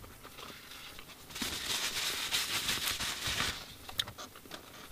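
Rustling and crackling of a paper and cardboard fast-food snack box being handled for about two seconds, followed by a single sharp click.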